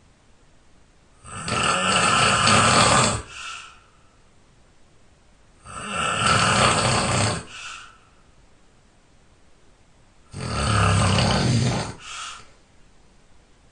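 A person snoring loudly in their sleep: three long snores about four and a half seconds apart, each followed by a short, fainter breath.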